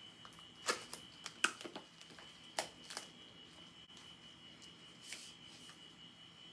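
Hands opening and handling subscription packaging: a scatter of sharp clicks and crinkles, clustered in the first three seconds with one more about five seconds in. A faint steady high-pitched whine runs underneath.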